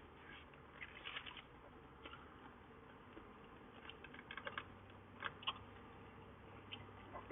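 Faint, scattered small clicks and crackles of someone eating fast food: mouth sounds and the handling of food and its wrapper.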